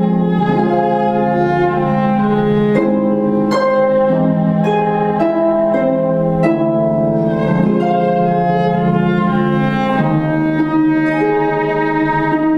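Viola and concert pedal harp playing together: the viola holds long bowed notes over plucked harp notes that ring and fade.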